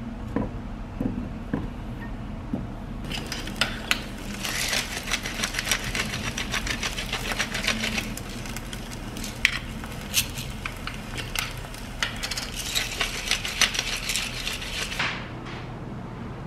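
Food sizzling and crackling in a hot pan, a dense crackle of many small pops over a hiss that starts about three seconds in, after a few light knocks, and dies away near the end.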